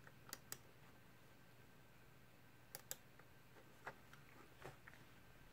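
Faint computer mouse clicks against near silence: two quick pairs of clicks (double-clicks), one near the start and one just under three seconds in, and two single clicks later.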